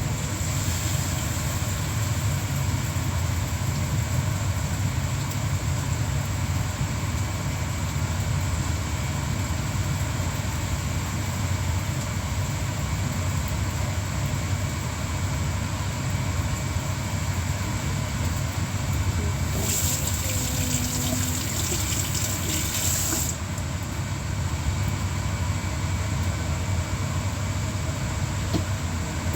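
Steady low mechanical hum, with a few seconds of rushing hiss about twenty seconds in.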